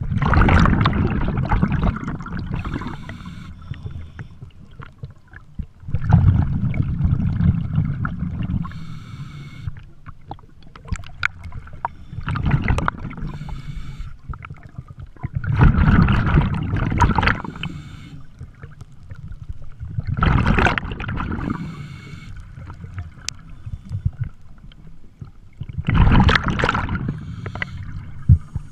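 Scuba diver breathing through a regulator underwater: exhaled air bubbles out in a gurgling rush six times, each lasting a couple of seconds, with a faint hiss of inhalation in between.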